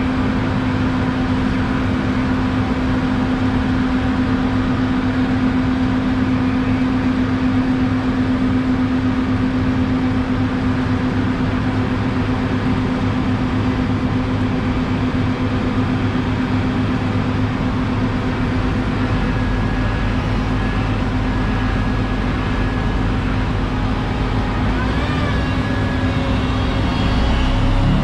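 Asphalt roller's engine running steadily close by with a constant hum; a deeper rumble builds about two-thirds of the way in as the roller works and moves past.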